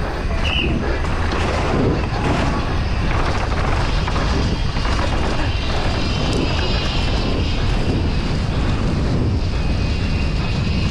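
Downhill mountain bike ridden at race speed, heard from a GoPro mounted on the bike: steady wind rush over the microphone with the tyres and frame rattling over rough dirt and grass.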